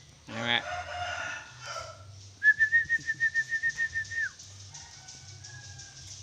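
A bird calling: first a harsh, raspy call, then about two seconds in a rapid whistled trill held on one pitch for nearly two seconds, followed by faint thin whistles.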